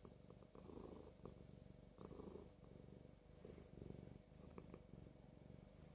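Domestic cat purring while having its chin and head stroked: a faint, low purr that swells and fades with each breath.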